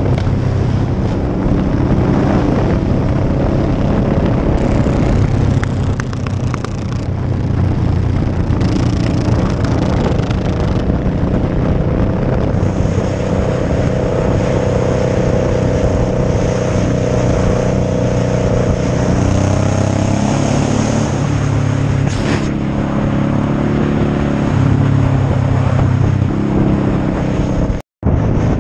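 Motorcycle engine running steadily at highway cruising speed, with a rush of wind over it; the engine note shifts about two-thirds of the way through, and the sound cuts out for a split second near the end.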